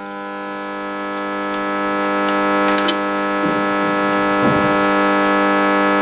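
A steady droning tone with many overtones, growing slowly louder, with a few light knocks of the compression gauge being handled.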